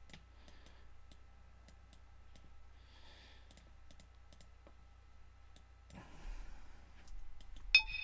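Scattered, quiet computer mouse clicks over a faint steady hum. Right at the end a bright, bell-like note from the ZynAddSubFX software synthesizer strikes.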